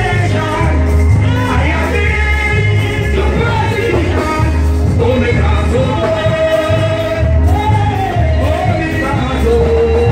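Loud amplified church music: voices singing into microphones over a heavy, evenly pulsing bass line.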